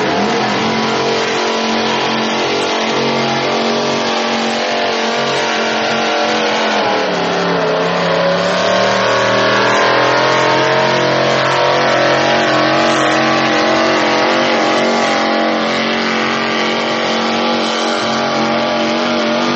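Vintage Chevrolet pickup's engine running at high revs under heavy load as it drags a truck-pull sled. The pitch sags about seven seconds in, then climbs again.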